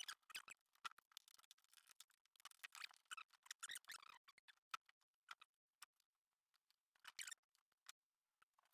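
Faint, scattered small clicks and rustles of hands handling electrical wires and connectors, irregular and with near silence in between.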